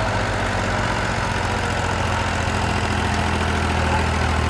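Heavy diesel engine running steadily at an even, low pitch.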